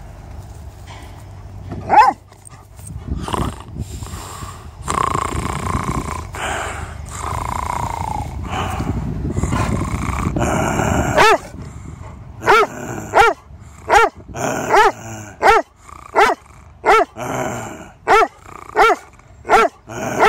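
Doberman barking at its owner in play. One loud bark comes about two seconds in, then about six seconds of low, rough growling, then a steady run of barks, about one every 0.7 seconds, to the end.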